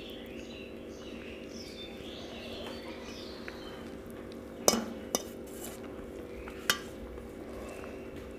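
Fingers mixing rice and fish curry on a stainless steel plate, with three sharp clinks against the plate about halfway through and near two-thirds in, over a steady low background hum.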